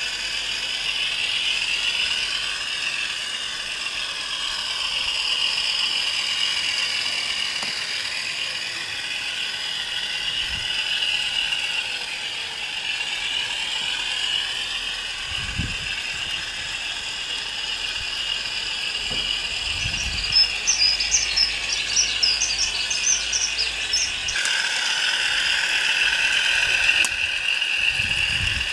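Hornby OO gauge Class 50 model locomotive's Howes DCC sound chip playing an English Electric diesel engine sound through its small onboard speaker, steady and tinny, swelling and fading as the train passes. A run of rapid sharp clicks comes about twenty seconds in, and the engine sound changes character near the end.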